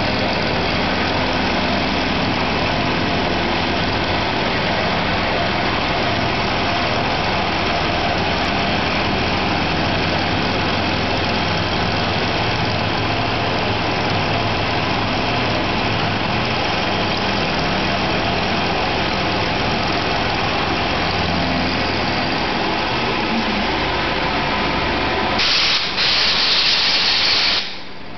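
CNC milling machine running, its end mill cutting a metal part wet with cutting fluid: a steady mechanical drone with a hiss over it. Near the end a louder hissing rush lasts about two seconds, then the sound drops away suddenly.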